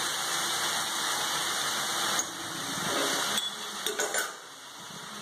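Onions, banana stem and dal sizzling in an aluminium pot on the stove, a steady hiss that drops quieter about two seconds in, with a few faint clicks near the end.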